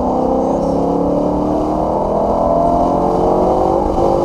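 BMW E90 M3's 4.0-litre V8 heard from inside the cabin, accelerating with its pitch rising steadily, then dropping suddenly near the end as it shifts up a gear and starting to climb again.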